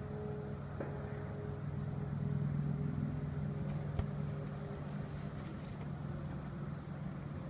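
A motor vehicle's engine idling steadily, with a single sharp click about four seconds in.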